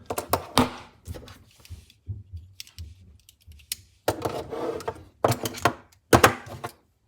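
Spring-loaded pliers of a Leatherman OHT multitool being worked open and shut: a run of metal clicks and snaps in several clusters, with the loudest snaps near the end.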